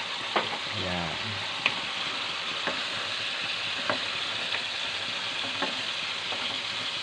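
Pakbet vegetables, freshly added okra among them, cooking with a steady sizzling hiss in a pot as a spatula stirs them, knocking lightly against the pot about once a second.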